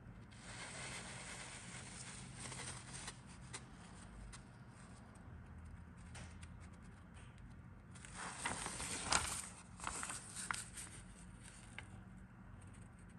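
A paper instruction sheet rustling and crinkling as it is handled and refolded. The crinkling is loudest in a stretch of sharp crackles about eight to eleven seconds in.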